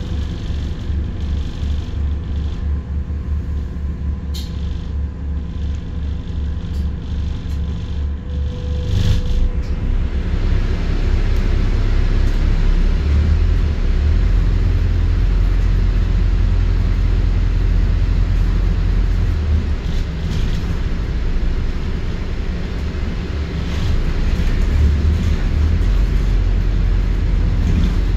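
A London double-deck diesel bus engine idling with a regular low throb. About nine seconds in, it pulls away and the engine and road noise grow louder, then run on steadily as the bus drives.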